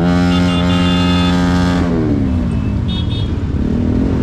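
Motorcycle engine held at steady high revs, then revs dropping away about two seconds in. Steady wind and road noise run underneath.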